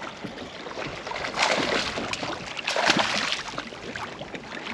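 Water splashing in two short bursts as a hooked largemouth bass thrashes at the surface while it is reeled in to the boat.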